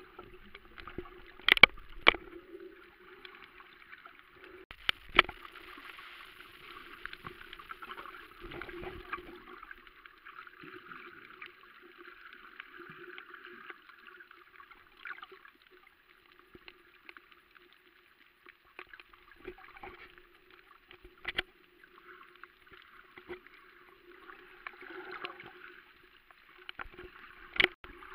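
Underwater ambience picked up by a camera held below the surface: a steady hiss with a low hum beneath it, broken by a few sharp clicks, a pair about two seconds in and another near the end.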